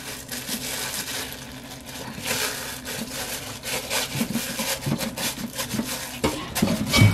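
Plastic bag crinkling and rubbing as a rubber-gloved hand presses it down over salted plums packed in an earthenware crock, in irregular scratchy strokes, with a dull bump just before the end.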